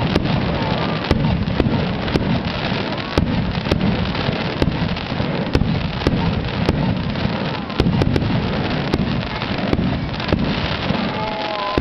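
Aerial fireworks bursting: a rapid, irregular string of sharp bangs, several a second, over a continuous din of exploding shells.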